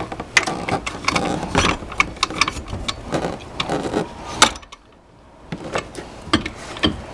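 Irregular clicks, knocks and rattles as a Honda Odyssey's unbolted power liftgate motor is worked loose and lowered out of its mount against the surrounding trim and brackets. There is a short quiet spell about five seconds in.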